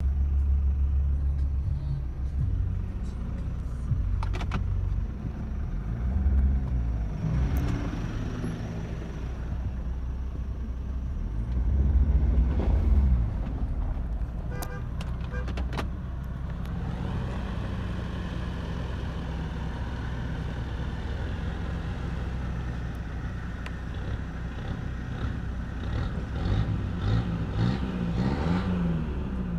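Car engine under way on an unpaved forest road, its note rising and falling again and again as it accelerates and changes gear, over a deep rumble. A few sharp knocks come through, loudest about four seconds in and again around fifteen seconds in.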